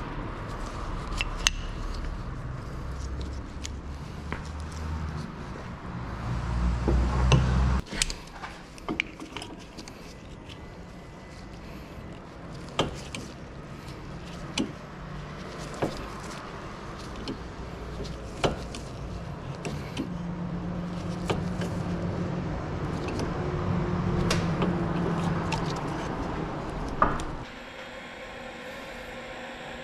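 Workshop sounds of brake work: scattered sharp clicks and knocks of hand tools and parts. A low rumble stops about eight seconds in, and a different steady hum takes over near the end.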